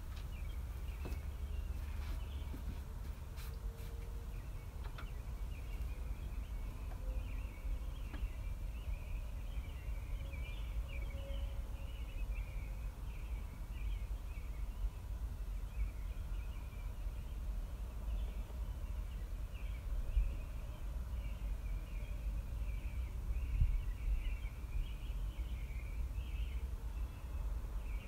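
Birds chirping continuously over a low steady rumble.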